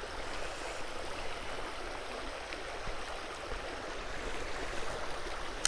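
Stream water running steadily over riffles, a constant rushing and splashing.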